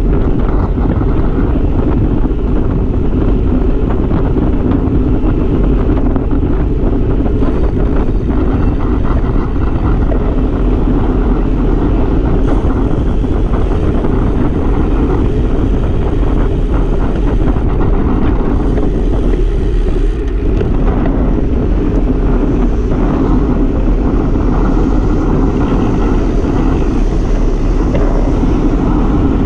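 Wind buffeting the camera's microphone on a road bike ridden at speed: a steady low rumble.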